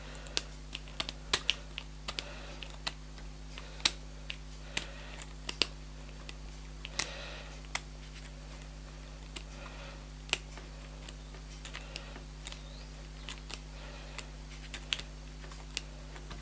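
Irregular light metallic clicks of small precision pliers working a tiny nut and screw on a rimless eyeglass frame as the loose nut is tightened, over a steady low hum.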